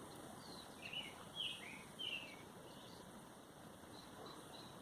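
Faint bird chirping: a run of short chirps, each falling in pitch, about one to two seconds in, then a few fainter, higher ones near the end.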